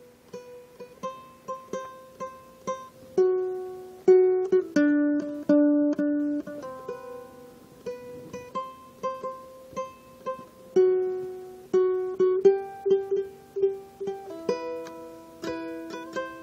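Background music: a plucked-string melody of single notes picked at a steady pace, each ringing out and fading.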